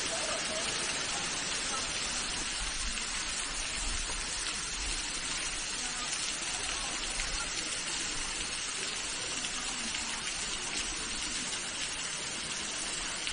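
Thin waterfall falling onto boulders: a steady, even hiss of falling and splashing water.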